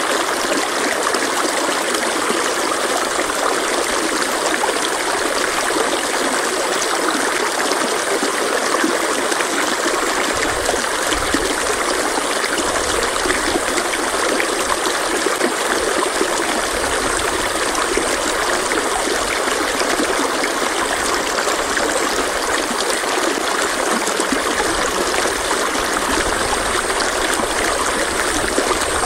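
Stream water running steadily, a continuous even rush and trickle with no breaks.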